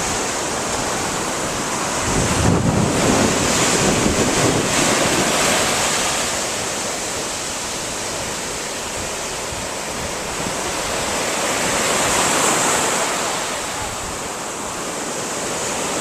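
Ocean surf washing onto a beach, a steady rush that swells twice as waves break, with wind buffeting the microphone about two seconds in.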